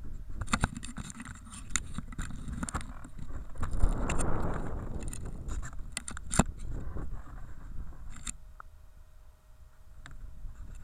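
Wind rumbling on the microphone of the plane-mounted camera, with scattered sharp clicks, knocks and scrapes of the small foam airframe being handled; the rumble swells about four seconds in and dies down near the end.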